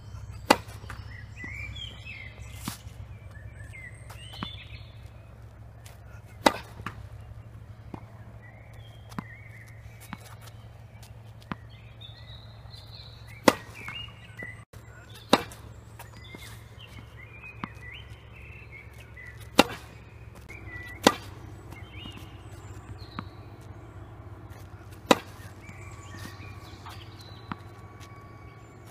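Tennis ball struck by a racket and bouncing on a hard court: single sharp pops every few seconds, some close in pairs. Birds chirp faintly in between.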